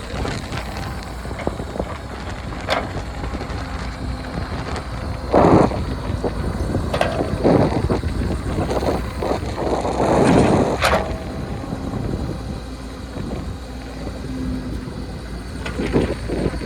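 Diesel engine of a CAT 424 backhoe loader running steadily as it dozes sand, with wind on the microphone. Louder noisy swells come about five seconds in and again about ten seconds in.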